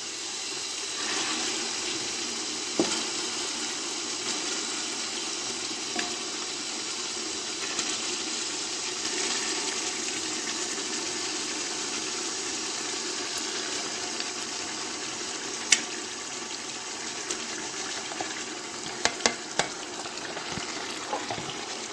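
Marinated chicken sizzling steadily in hot oil with onions and tomato in a steel pot, the sizzle rising about a second in as the chicken goes in. A few sharp clinks of the stirring spoon against the pot, several close together near the end.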